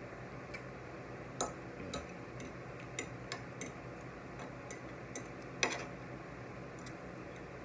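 A metal fork clicking and scraping against a plate as food is picked apart: about a dozen irregular light clicks, the loudest a little past the middle.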